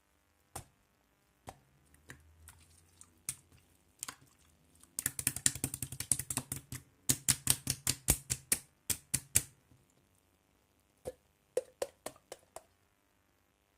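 Slime being pressed and worked by hand, making sharp clicking and popping sounds: a few scattered clicks, then a fast run of clicks lasting about four seconds, then a few more near the end.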